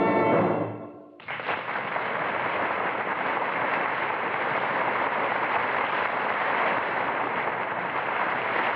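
A brass orchestral sting dies away about a second in. It is followed by a steady crackling noise, a radio sound effect of a ship's fire burning.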